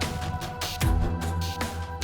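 Film score music: a tense electronic soundtrack with held tones, low bass and a steady percussive beat.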